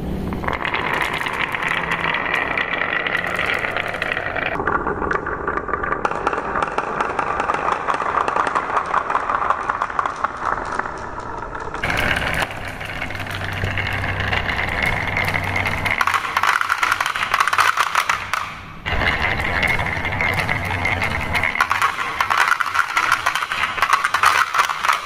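Many marbles rolling and clattering down carved wooden zigzag marble-run tracks: a continuous rattle of rapid small clicks as they knock against the wooden walls and each other. The sound changes abruptly a few times.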